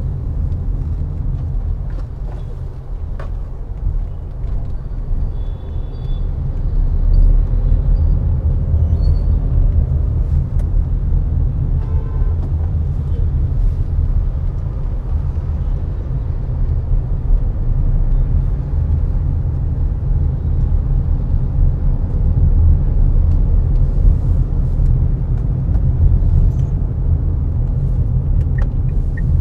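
Car driving on city roads: a steady low rumble of engine and tyres, with a few faint short tones, one about twelve seconds in and a few near the end.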